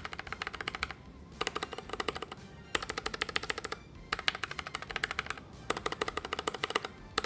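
Typing on a NuPhy Air75 low-profile mechanical keyboard fitted with red (linear) switches: rapid key clacks, about ten a second, in five bursts with short pauses between them.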